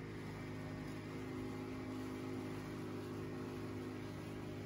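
Boat's outboard motor idling, a steady low hum.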